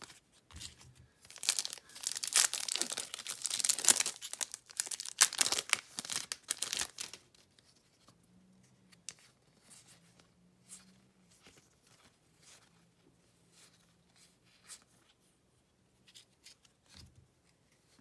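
Foil wrapper of a baseball card pack being torn open and crinkled, loud for about six seconds, then only faint soft clicks as the cards are handled.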